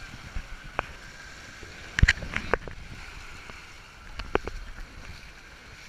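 Shallow water washing and splashing right at the microphone at the water's edge, with a few sharp splashes and knocks about two seconds in and again past four seconds.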